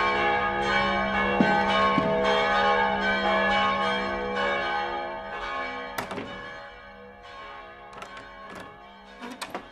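Bells chiming in overlapping strokes, ringing on and slowly dying away, with a few sharp clicks and knocks in the second half.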